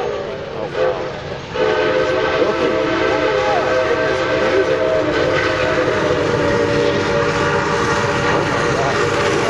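ATSF 3751's steam whistle blowing a chord of several notes as the 4-8-4 Northern approaches at speed. The whistle weakens about half a second in, sounds again from about a second and a half in and holds, with the noise of the oncoming train building beneath it near the end.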